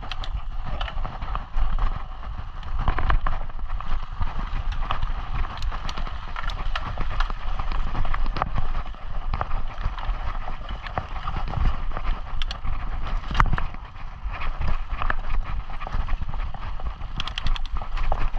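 Mountain bike rolling fast over a bumpy dirt trail: tyres crunching on dirt and gravel while the chain and frame rattle with frequent sharp clicks and knocks over the jolts, over a constant low rumble.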